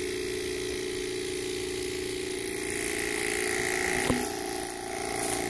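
A motor running steadily with a constant hum, with one short click about four seconds in.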